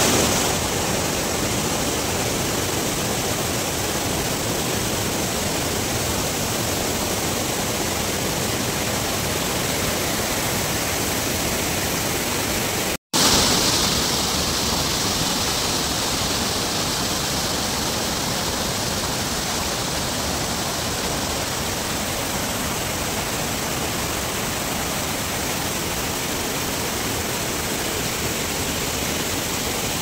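Waterfall in full spate and the churning water below it: a steady rush of water. The sound breaks off for a moment about 13 seconds in, then comes back brighter and closer.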